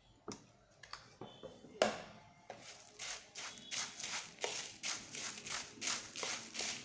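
A steel spoon stirring dry puffed rice with peanuts in a plastic bowl: a few light clicks, then from about two and a half seconds in a quick run of rustling, scraping strokes, about three a second.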